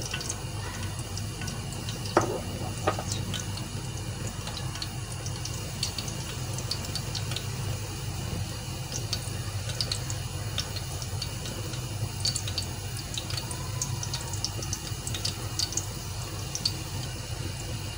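Cooking oil heating in a pan on high heat, with faint scattered ticks and small crackles as it comes up to frying temperature, and a steady low hum underneath. Two sharper clicks come about two and three seconds in.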